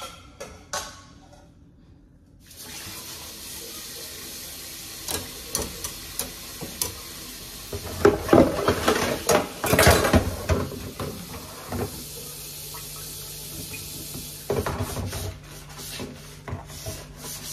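A kitchen tap is turned on a couple of seconds in and runs steadily into a sink, after a few light clinks. Things clatter and splash in the sink, loudest in the middle and again near the end.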